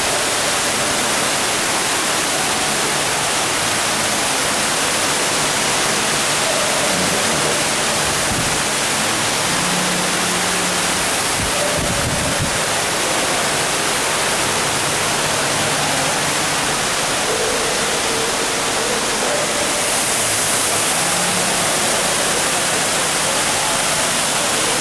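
Steady rushing of a large indoor waterfall: a constant, dense hiss of falling water.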